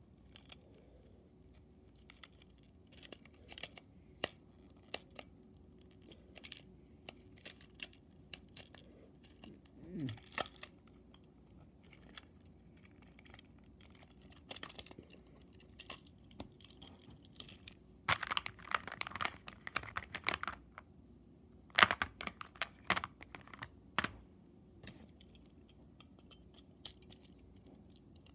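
Hands handling a battery-powered plastic toy train engine (Motorized Panda Percy): scattered clicks, taps and rattles of plastic parts as the battery compartment is opened and batteries are fitted. The clicking comes thickest in two busy bursts about two-thirds of the way through.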